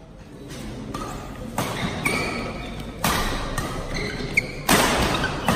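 A badminton rally: rackets strike the shuttlecock with sharp smacks about every second or so, the loudest near the end, with short squeaks of shoes on the court between hits.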